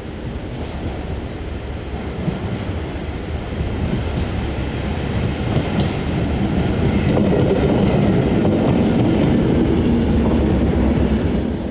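British Rail 'Thumper' diesel-electric multiple unit 1317 approaching and passing close by: its diesel engine and wheels on the rails grow steadily louder, peaking over the last few seconds as the train goes past.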